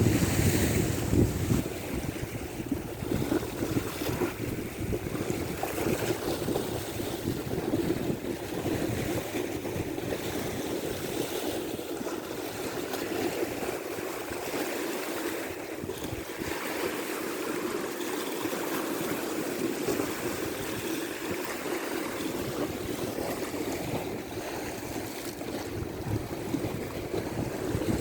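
Sea waves washing with wind buffeting the microphone, a steady rushing that is louder for the first second or two.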